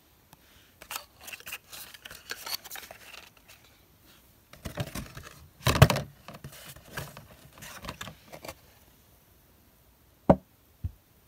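Packaging being handled: irregular rustling, scraping and clicking, with a heavier thump about six seconds in and two short knocks near the end.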